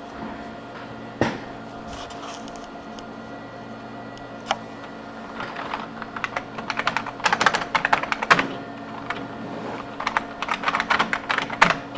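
Typing on a computer keyboard: scattered keystrokes, then two quick runs of keys, one about halfway through and one near the end, with a single knock about a second in. A steady electrical hum sits underneath.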